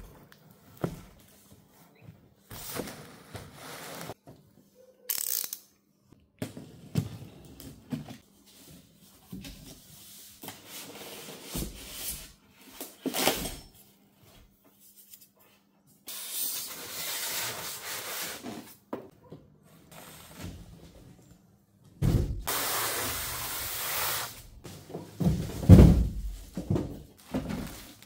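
Unboxing a benchtop sander: a cardboard box knocked and handled, foam packing and plastic wrapping rustling and scraping in two longer stretches, and a heavy thump near the end as the boxed-out machine meets the wooden bench.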